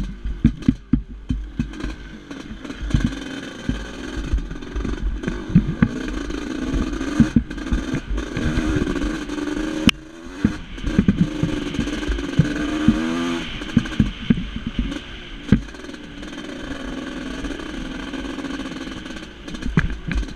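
1989 Yamaha YZ250WR's 250 cc two-stroke single engine running under way on a trail ride, its pitch rising and falling as the throttle is worked. Frequent sharp knocks and clatter come from the bike and mounted camera being jolted over the rough trail.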